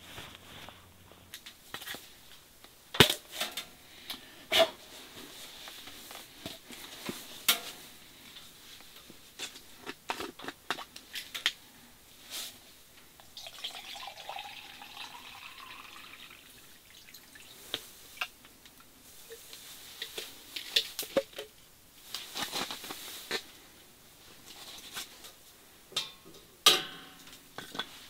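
Water poured into a mug, rising in pitch as it fills, in the middle, among scattered clicks and knocks from handling a water bottle, mug and camp gear.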